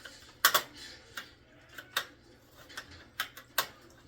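Sharp metallic clicks and taps of a hand tool working at a tight nut on a DirecTV receiver's metal parts, about seven irregular strikes with the loudest about half a second in.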